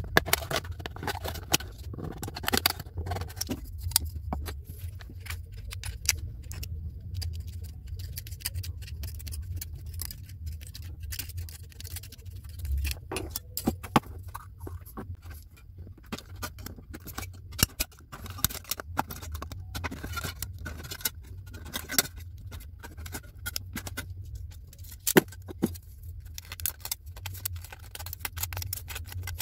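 Thin aluminium drink cans being scored and cut with a craft knife and handled: irregular clicks, scrapes and crinkles of the can metal, over a steady low hum.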